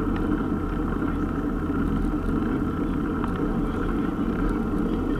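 Steady low rumble of a mountain bike rolling on asphalt, tyre and wind noise picked up through a handlebar-mounted action camera.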